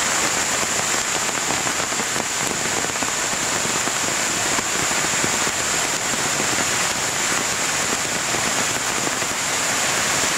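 Heavy rain and fast-flowing brown floodwater rushing over rocks, a steady unbroken wash of noise.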